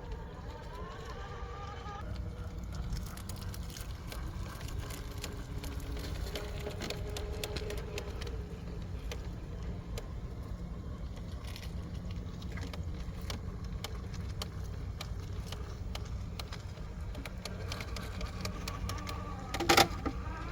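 Scale RC rock crawler's electric motor and gear drivetrain whining as it crawls, its pitch rising and falling with the throttle, with scattered clicks of tyres and chassis on rock. There is one sharp knock near the end.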